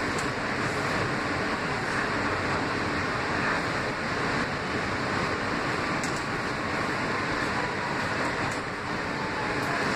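Kawasaki R160B subway car running at speed, heard from inside the car: a steady, even rumble and rush of wheels on rails, with a few faint clicks.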